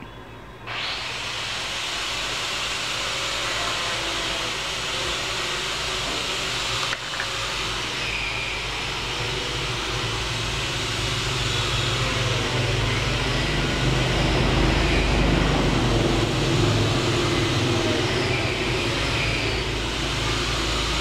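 A steady mechanical rush with a low hum, like a small motor-driven blower, switching on abruptly about a second in and growing a little louder later.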